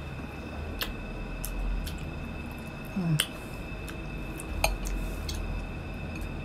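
Close-up mouth sounds of eating a seedless Muscat grape: a handful of sharp wet clicks and smacks as it is bitten and chewed, with a short hum of the voice about three seconds in. A steady faint high whine and a low hum sit underneath.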